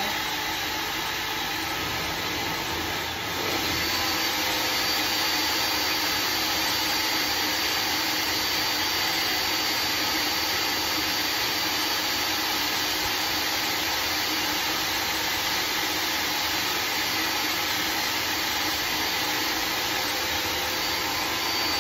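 Dog grooming dryer running on its low setting: a steady rush of blown air with a motor whine. It gets slightly louder about three and a half seconds in, where a thin high whine comes in.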